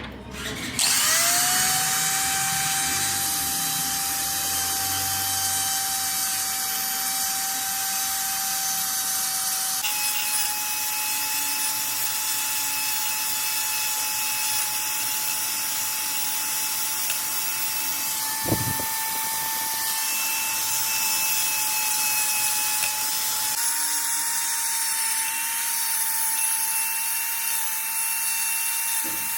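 An electric power tool spins up with a rising whine about a second in, then runs steadily with a high whine and a strong hiss. Its pitch steps up slightly twice. A single sharp knock comes about two-thirds of the way through.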